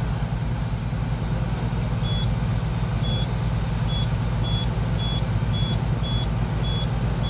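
CASE CX490C excavator's diesel engine idling steadily, heard from inside the cab. From about two seconds in, a run of about ten short high beeps comes from the cab monitor's keypad as its arrow keys are pressed.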